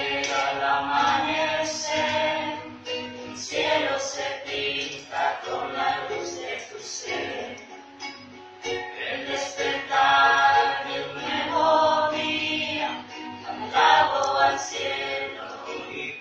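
A small group of women singing a hymn together, accompanied by a strummed ukulele.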